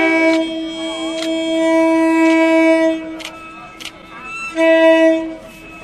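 Horn of an approaching passenger train sounding a long steady blast that ends about three seconds in, then a second, shorter blast of the same pitch near the end.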